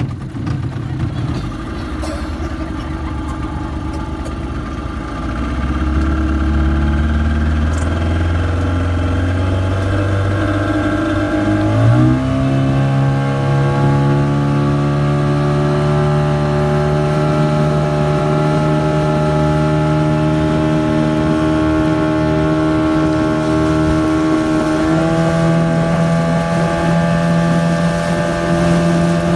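Tow speedboat's engine running under way, pulling a banana boat. It grows louder about five seconds in, its pitch climbs sharply near the middle and steps up again near the end as the revs rise.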